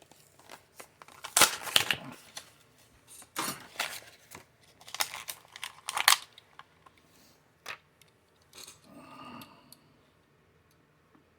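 Diecast toy car packaging being torn and crinkled open by hand in several rustling bursts, followed by a couple of sharp clicks.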